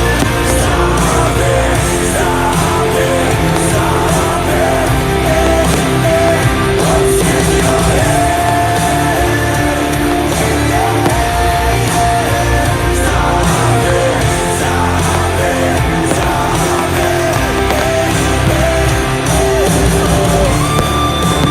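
Rock song with guitar and singing, playing steadily and loud.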